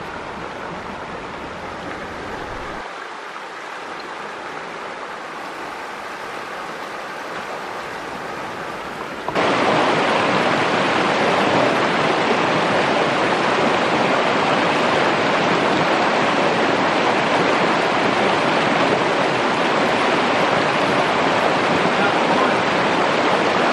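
Shallow stream rushing over rocks in a steady wash of water noise, which turns abruptly much louder and closer about nine seconds in.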